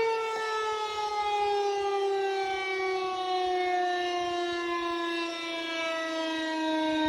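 Federal Signal 2001 electromechanical outdoor warning siren sounding one sustained tone, its pitch sliding slowly and steadily downward.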